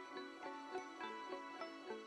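Instrumental background music: a gentle piece of quick, evenly spaced notes, about three a second, each fading after it sounds.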